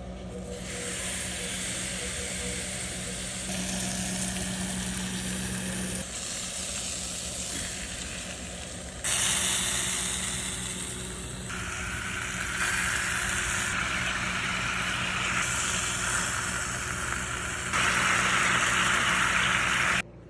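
Boneless chicken thighs sizzling on a charcoal grill, heard in several short clips joined with sudden changes in loudness and tone. A steady low hum runs underneath.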